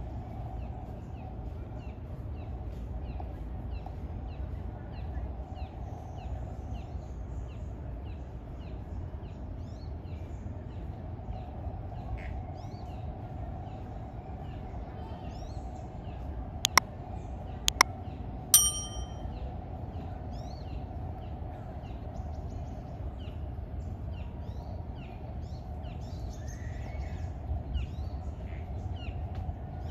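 Outdoor ambience: a steady low rumble with a short, high chirp repeated about twice a second throughout. Two sharp clicks come about 17 and 18 seconds in, followed by a single bright metallic ding.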